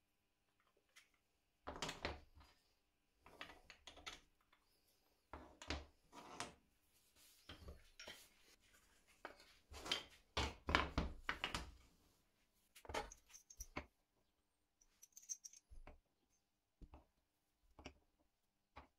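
Small workshop pieces being handled: a metal hex key and screw clicking against a plywood clamp ring, wooden pieces set down on a hard floor, and steel Forstner bits clinking as they are placed in a wooden holder near the end. Irregular short clatters and knocks, busiest in the middle, thinning to a few single clicks.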